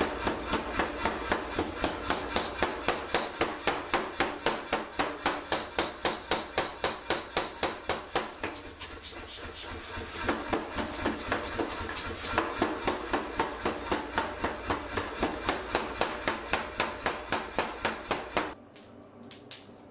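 Power hammer striking a hot Damascus steel blade blank between its dies in a fast, even run of about four blows a second. The blows soften briefly a little before halfway, then stop suddenly shortly before the end.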